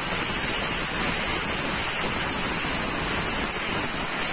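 Resanta IPR-40 inverter plasma cutter cutting through a thick steel leaf spring: a steady hiss of the plasma arc and its compressed-air jet, with a steady high-pitched whine above it.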